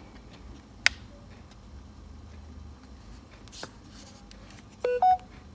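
Small sharp clicks of handling and fitting tiny parts on a phone circuit board, typical of Wi-Fi aerial leads being snapped onto their connectors. Near the end comes a short two-note electronic beep, the second note higher.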